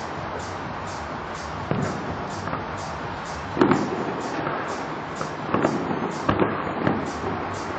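Distant aerial fireworks shells bursting: a few separate bangs over steady background noise, the loudest about three and a half seconds in, then a quick run of smaller bangs around six seconds.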